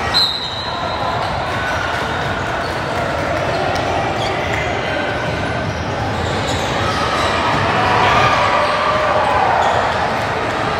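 Indoor gym during a youth volleyball match: balls thudding on the court amid a steady mix of players' and spectators' voices in the hall, with a short high whistle blast right at the start.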